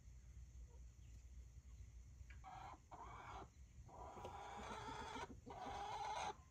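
Leghorn hen calling while laying an egg: a series of drawn-out squawks starting about two seconds in.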